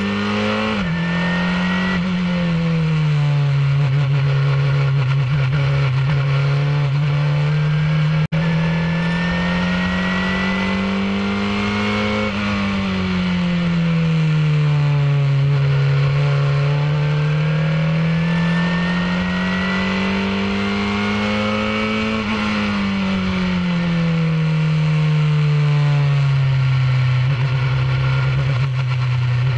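Formula 2000 open-wheel race car's engine at racing speed, heard from the onboard camera. Its revs climb slowly and ease back in long waves, about three times, with a thin whine rising alongside each climb. There is a brief dropout about eight seconds in.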